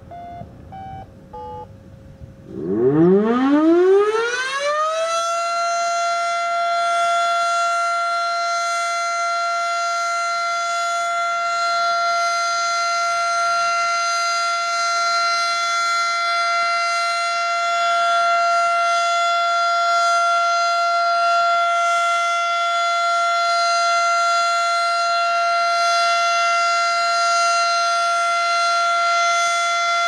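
Federal Signal Model 7 civil-defense siren winding up about two and a half seconds in, its pitch climbing for about two seconds, then holding one steady, loud tone for the rest of the time, sounding a routine test.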